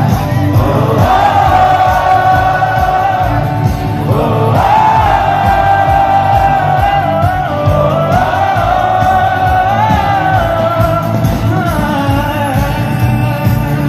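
Live band music played loud through a concert sound system: a singer holding long, bending melody notes over electric guitar, heavy bass and a steady drum beat.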